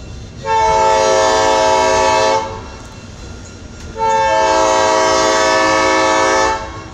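Locomotive air horn sounding two long blasts, each a steady chord of several notes, about two seconds apart. The train's running rumble carries on underneath.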